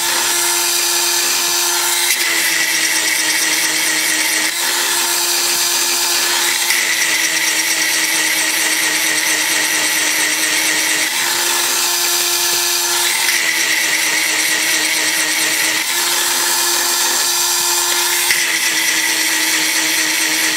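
Granberg 12-volt bar-mounted chain grinder running without a break, its small grinding stone sharpening chainsaw cutter teeth. The motor's whine steps up and down in pitch every two to four seconds as the stone is worked against the cutters.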